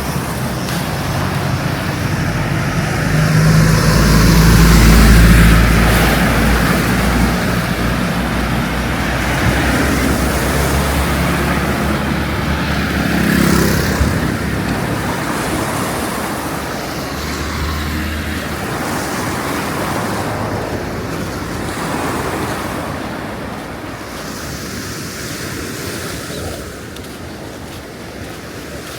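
A motor vehicle's engine passes close by, growing to its loudest about five seconds in and then fading. A steady outdoor wash of traffic and sea noise runs underneath.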